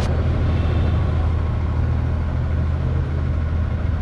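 Steady low rumble of vehicle engines in street traffic.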